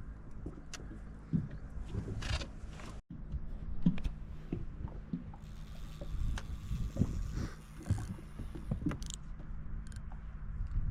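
Fishing-boat handling noise: a steady low hum and rumble with scattered knocks and clunks and a few short scrapes.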